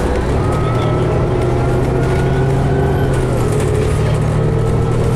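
2011 New Flyer D60LFR articulated bus with a Cummins ISL diesel and Allison automatic transmission, running, heard from inside the bus: a steady low drone with higher tones that drift slightly up and down in pitch.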